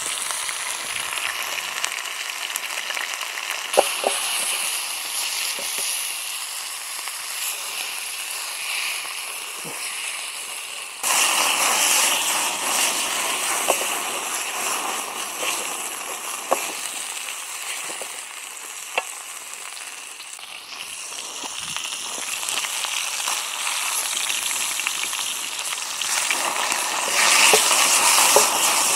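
Meat sizzling in a steel frying pan on a Swedish fire torch, with scattered pops and crackles from the fat and the burning log. The sizzle jumps louder about eleven seconds in and is loudest near the end, as flames flare up around the pan.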